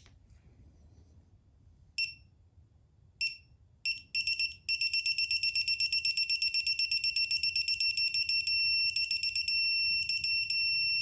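Digital torque wrench beeping as an ARP connecting-rod bolt is slowly tightened toward 40 ft-lb. A few single high beeps come first, then faster and faster beeps, then a near-continuous tone, briefly broken, that signals the set torque is reached.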